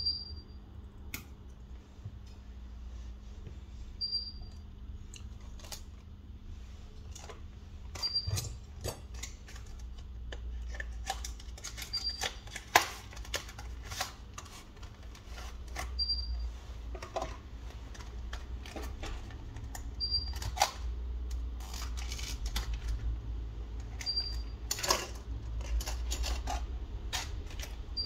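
Irregular clicks and taps of small tools working on an iPhone 11 during a screen replacement. A short high beep repeats about every four seconds over a steady low hum, and the clicks come thicker after the first several seconds.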